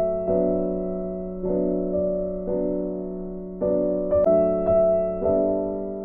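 Background music: slow electric piano chords, a new chord struck about once a second and left to fade.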